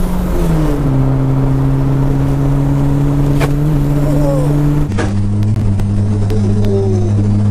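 Turbocharged classic Mini's engine heard from inside the cabin, driving along at a steady cruise with road noise underneath. Its note drops in pitch near the start and then holds steady, and about five seconds in it settles on a lower, steady note.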